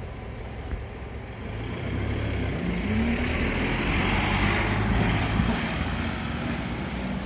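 A passing vehicle: a low rumble with a hiss that swells to a peak about four to five seconds in, then eases off.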